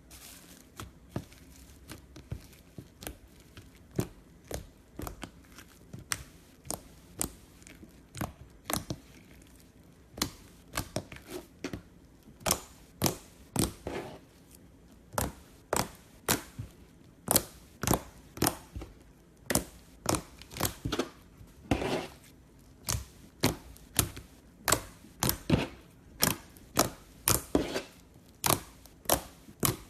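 Slime being worked by hand, making a series of short sticky clicks and pops, about one to two a second, louder from about twelve seconds in.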